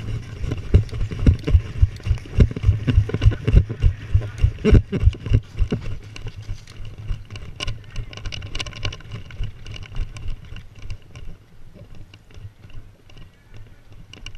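Running footfalls and the jolt of a gun-mounted action camera with each stride: heavy, regular thumps about three a second. They slow to softer, scattered knocks and clicks about halfway through.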